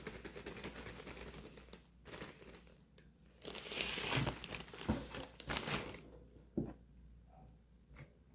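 Plastic sugar packaging crinkling and rustling as it is handled, loudest in two spells about four and five and a half seconds in, with a couple of light knocks.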